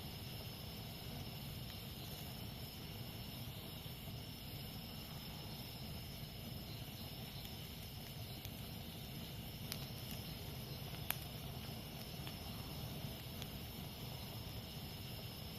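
Campfire burning steadily, with a couple of sharp pops about ten and eleven seconds in, over the steady high chirring of jungle insects.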